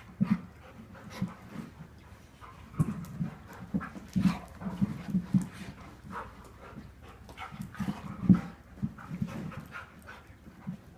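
A dog breathing heavily in short, irregular puffs, a few a second at times, the loudest a little past eight seconds in.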